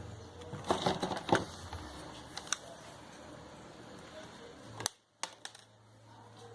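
A cluster of sharp clicks and knocks about a second in, then a few single clicks later, over a faint steady low hum.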